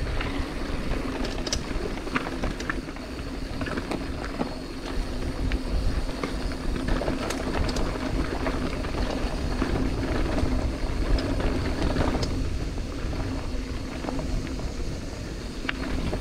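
Mountain bike being ridden along a dirt trail: a steady rumble of wind and tyre noise, with scattered clicks and rattles from the bike.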